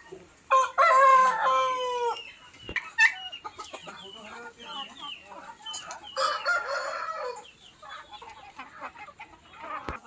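Rooster crowing, one long call starting about half a second in and lasting over a second, and a second crow about six seconds in, with chickens clucking and short chirping calls in between.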